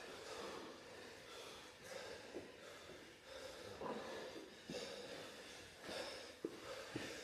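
A person breathing hard during exercise, a breath about every second, with a couple of faint knocks near the end.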